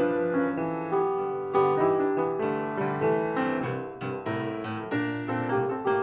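Solo piano music, with chords and melody notes struck about twice a second.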